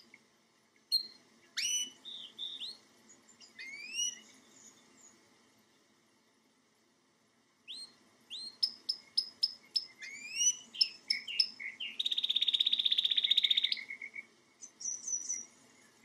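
Domestic canary singing. Rising whistled notes come first, then after a pause a run of quick repeated chirps, a fast even trill of nearly two seconds, and a few short notes near the end.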